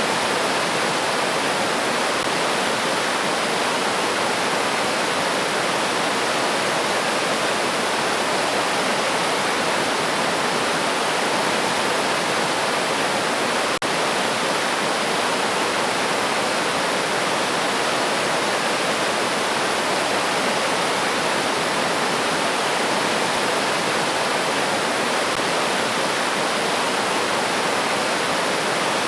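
River water flowing steadily, an even unbroken rush of water.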